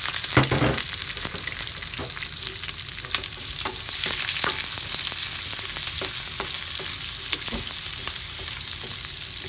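Food frying in hot oil in a pan, sizzling steadily, with scattered clicks and scrapes of a utensil stirring it.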